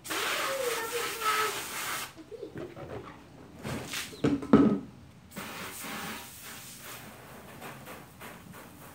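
Garden hose spray nozzle hissing as water is sprayed onto a car during a rinse. The spray cuts off about two seconds in and starts again about five seconds in, with a few short louder sounds in the gap.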